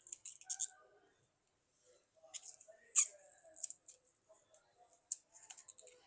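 Light clicks and short scratchy scrapes of small tools and phone parts being handled, with one sharper click about three seconds in.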